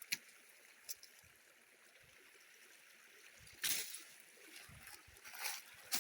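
Creek water trickling with a steady hiss, broken by a few small clicks and a short, loud swish a bit over halfway through, with a smaller one near the end.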